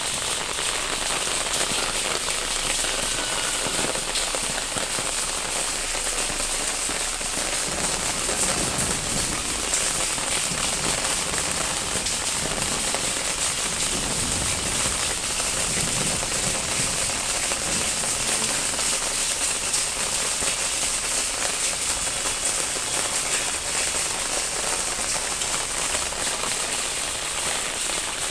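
Steady monsoon rain falling: an even hiss thick with tiny drop ticks.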